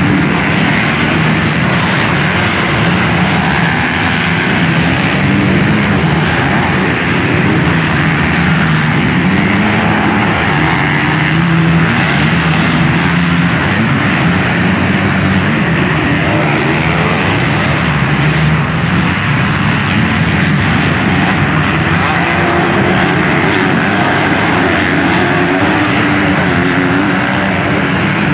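Several motocross bikes racing around a dirt track, their engines revving up and down and overlapping into a continuous drone.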